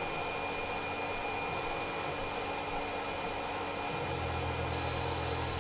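CNC mill spindle running at about 5,140 RPM, dry, its cutter machining a small plywood part: a steady whir. A lower steady hum joins about four seconds in.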